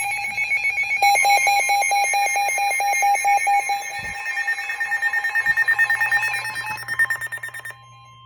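Weather alert radio's alarm sounding between warnings: loud, rapid electronic beeping, about four beeps a second. It cuts off near the end, leaving a fainter steady tone.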